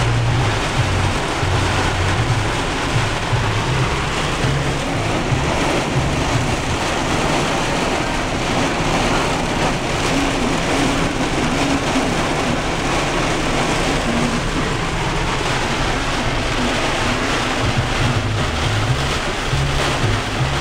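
Heavy wind-driven rain and strong straight-line wind gusts of a severe thunderstorm beating on a vehicle, heard from inside the cabin as a loud, steady rushing noise with an uneven low rumble.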